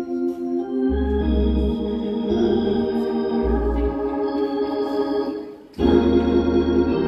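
Organ playing slow sustained chords over changing low bass notes. Just before the end it fades briefly and then comes straight back.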